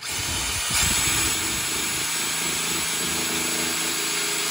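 Cordless drill starting up and running steadily at speed, boring a small pilot hole into a hard old pine 2x4 stud, with a brief surge about a second in.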